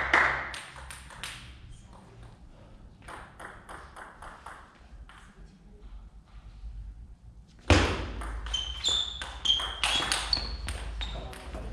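Table tennis ball clicking on the table and bats. About three seconds in there is a quick run of evenly spaced light clicks. Near eight seconds a sudden loud thump starts a fast rally of sharp ball knocks mixed with short high squeaks of shoes on the floor.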